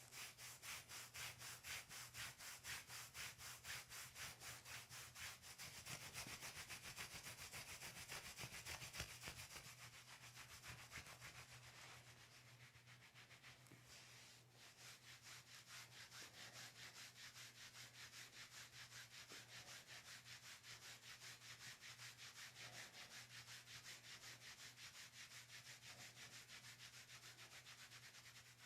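Faint, rapid rubbing of hands over the patient's body, about three to four strokes a second; it eases off and breaks briefly about fourteen seconds in, then carries on more softly.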